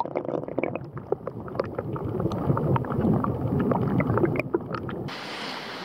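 Running water in a shallow stream heard through a submerged camera: muffled gurgling and rumbling with scattered small clicks and ticks. About five seconds in it changes abruptly to a steady, even rushing hiss.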